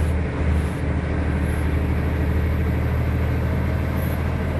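Volvo B7R coach's diesel engine and road noise, a steady low drone heard from inside the passenger cabin while the bus is under way.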